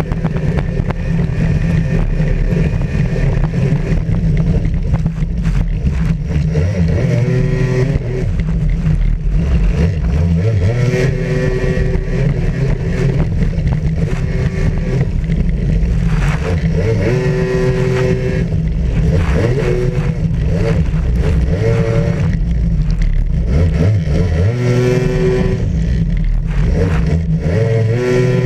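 Racing jet ski's engine running hard, heard from on board, its pitch rising and falling again and again as the throttle is opened and eased through the turns.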